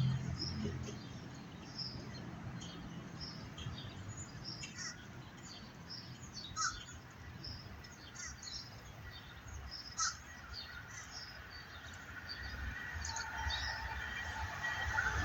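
Small birds chirping over and over in short high calls, over a low background hum. In the last couple of seconds a rising rumble and hiss builds as a train approaches.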